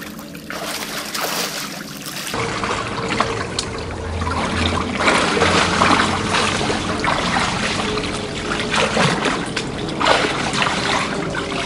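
Shallow creek water trickling and splashing as a person wades and moves about in it, with the splashing heaviest in the middle of the stretch.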